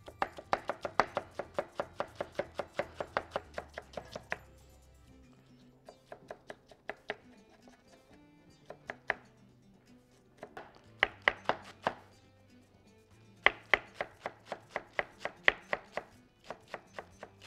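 Large kitchen knife shredding iceberg lettuce on a wooden cutting board: quick runs of knife strokes knocking on the board, about five a second, with a stretch of slower, scattered cuts in the middle.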